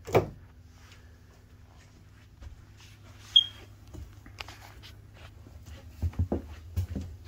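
Footsteps on the floor of a travel trailer, over a faint steady hum. There is one short high squeak a few seconds in and a few heavier low thuds near the end.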